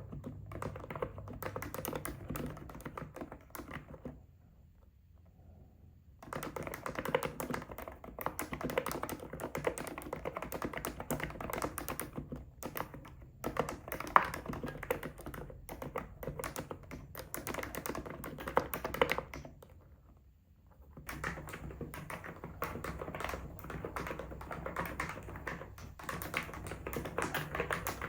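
Continuous typing on an ABKO electrostatic capacitive keyboard, a dense run of key presses that stops twice, for about two seconds after four seconds in and for about a second near twenty seconds in.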